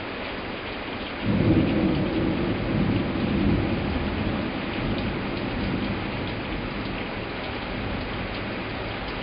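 Heavy summer cloudburst rain falling steadily, with a thunderclap that breaks in suddenly about a second in as a deep rumble and rolls away over the following seconds.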